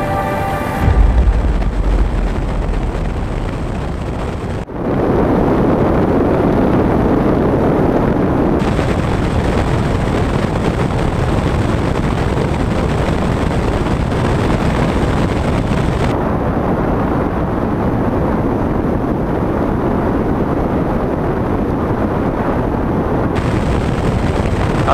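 Zlin Savage ultralight in flight: steady engine and wind noise, with a heavy low rumble for the first few seconds and a brief dip about five seconds in.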